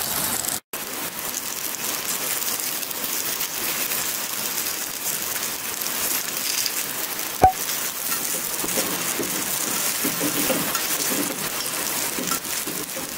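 Steady hiss of rain mixed with oil sizzling in a cast-iron kuzhi paniyaram pan. One sharp metallic clink of a spoon against the pan about seven and a half seconds in.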